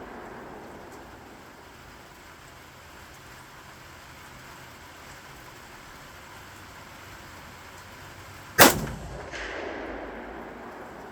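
A single shot from an AKM-pattern rifle in 7.62×39mm, about eight and a half seconds in, followed by an echo that rolls away over about a second and a half. At the start, the echo of the previous shot is fading out.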